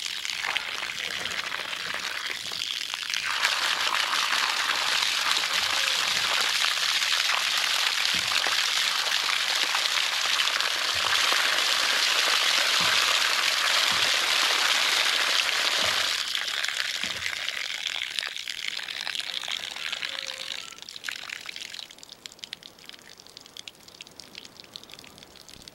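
Water running in a stream from the spout of a Woodford Iowa frost-free yard hydrant and splattering into snow, heavier through the middle, then easing off about three-quarters of the way through to a trickle and drips from the leaking hydrant.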